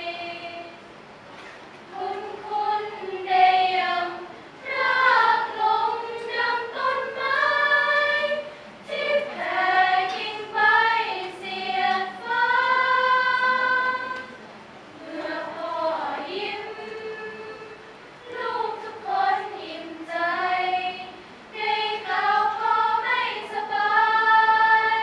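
Women's choir singing a Thai song a cappella in harmony, in sustained phrases that swell and fall with short pauses between them.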